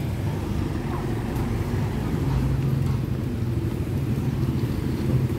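Steady low rumble of street traffic, with vehicle engines running.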